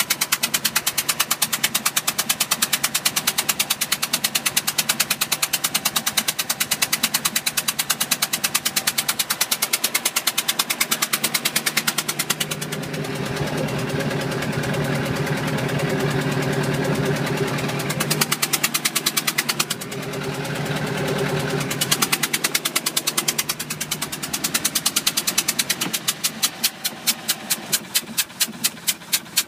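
2005 Bayliner 175's engine running with a rapid, even knocking. Twice the knock gives way for a few seconds to a smoother, steady hum. Near the end it slows to a few heavy knocks a second before stopping. The cause of the knock is not known.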